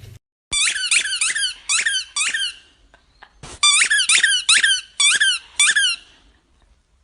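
Rapid high-pitched squeaks, about five a second, in bursts of one to two seconds with short pauses between, each squeak dropping quickly in pitch.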